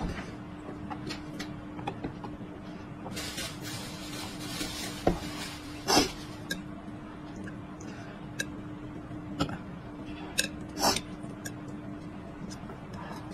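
Chopsticks clicking and scraping against a ceramic plate in scattered, separate clinks, with chewing in between and a steady low hum underneath.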